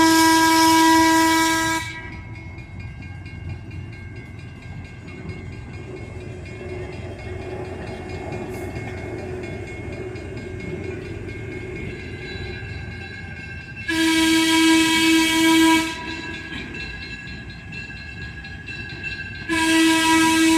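Diesel-electric train sounding its multi-tone horn in three blasts: one cutting off about two seconds in, another of about two seconds past the middle, and a third starting near the end. Between the blasts the train runs by with a steady rumble.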